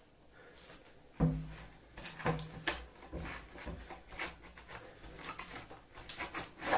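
Cutting and scraping with a small blade at packing tape wrapped around the end cap of a PVC pipe, the tube handled as it goes. There is a dull knock about a second in, then a run of sharp scrapes and clicks.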